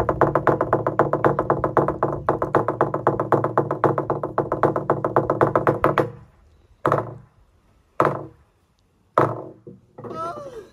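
Fijian lali, a hollowed-log slit drum, beaten with two wooden sticks in a fast, even run of strokes that stops about six seconds in. Three single, separate strokes follow, about a second apart.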